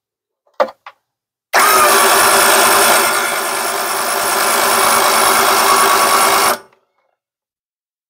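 Powerwinch P92001 electric roof-lift winch motor on a popup camper running, winding in its cable to raise the roof. A steady motor whine starts about a second and a half in, sags slightly in the middle and cuts off abruptly after about five seconds.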